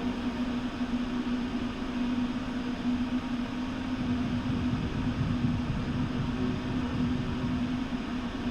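Steady drone of a ship's engines underway: a constant low hum over a broad rushing noise.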